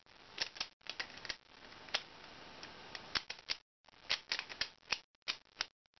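Plastic Pyraminx puzzle being twisted by hand, its layers turning in quick succession with a series of sharp, irregular plastic clicks as a last-layer algorithm is performed.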